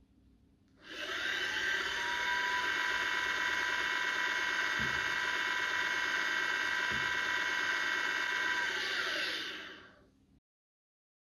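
Sound decoder of a Minitrix N-scale SNCF BB 9200 electric locomotive model playing one of its electric-locomotive machinery sounds. A steady hum with a whine rises as it starts about a second in, holds with two soft low knocks in the middle, and falls away as it stops near the end.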